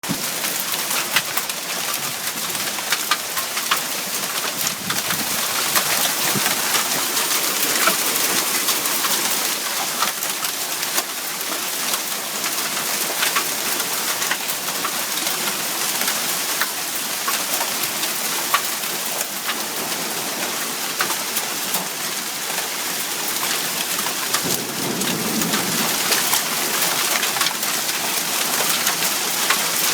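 Hail and heavy rain pelting down: a steady hiss of rain dotted with many sharp ticks of hailstones striking surfaces.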